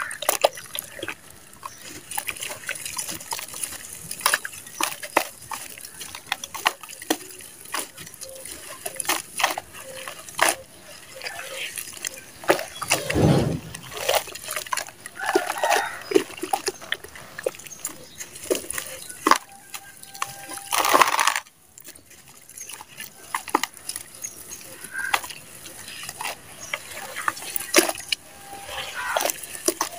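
Hands squeezing and crumbling wet dirt chunks in a plastic basin of muddy water: squelching, sloshing and splashing, with many sharp little clicks and pops. About 13 seconds in there is a heavier, deeper splash as a handful of mud is lifted and poured back, and a loud splash comes about 21 seconds in.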